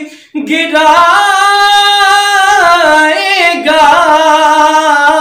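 A man singing an Urdu naat solo, unaccompanied: a short breath at the start, then long, drawn-out notes that waver and glide in pitch.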